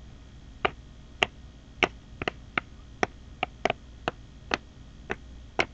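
About a dozen sharp, unevenly spaced clicks, two or three a second, from a plastic DVD case being handled and picked at with the fingers as its wrapping is opened.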